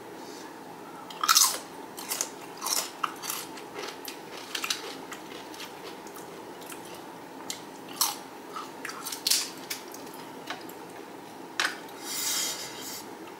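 Close-miked crunching and chewing of XXtra Flamin Hot Doritos tortilla chips: sharp crisp bites and crackles at irregular intervals, the loudest about a second in.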